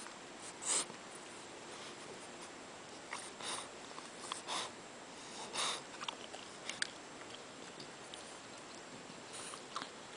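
French bulldog puppy snuffling and mouthing at a shaggy rug: about half a dozen short, soft noisy sounds spread over several seconds, the most about halfway through.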